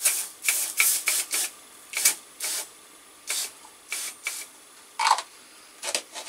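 Aerosol grill spray (cooking-oil spray) squirted in about a dozen short hissing bursts onto the still-hot grill grate.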